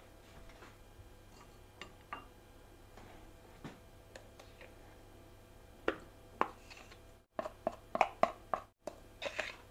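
Light clicks and clinks of kitchen handling while a block of cream cheese is unwrapped over a glass mixing bowl. A quick cluster of sharper knocks and rustles comes about seven to nine seconds in.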